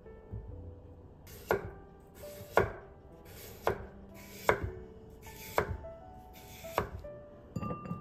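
Kitchen knife slicing carrots on a wooden cutting board: about six sharp knocks of the blade meeting the board, roughly one a second, then a quick patter of small clicks near the end.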